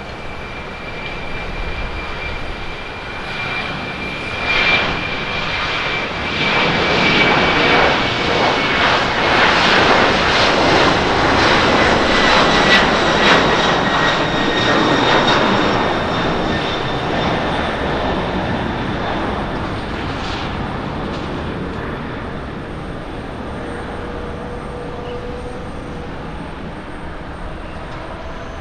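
Boeing 767-300ER's twin turbofan engines at takeoff power as the jet rolls, lifts off and climbs away. A broad jet roar with a high fan whine that slowly falls in pitch builds to its loudest about halfway through, then fades as the aircraft climbs out.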